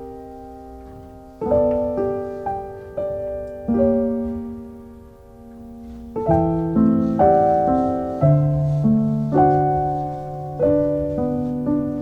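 Background solo piano music: soft, slow notes and chords, each ringing out and fading, with a low bass note sustained under the second half.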